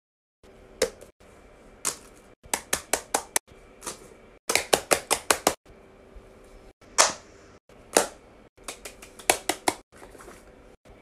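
Silicone push-pop (Pop It) fidget toys having their bubbles pressed: sharp pops, some in quick runs of five or six, others singly, starting about half a second in.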